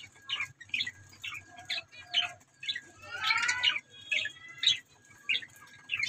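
Budgerigars chirping: short sharp calls about twice a second, with a longer warbling chatter about three seconds in.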